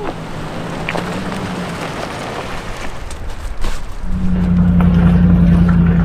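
A steady low motor hum, faint at first, then starting again much louder about four seconds in.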